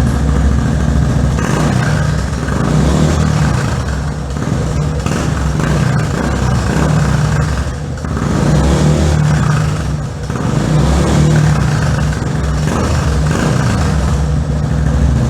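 Yamaha Fazer 250's single-cylinder engine running through a Jeskap aftermarket sport exhaust, blipped up and settling back several times, with brief dips in the level.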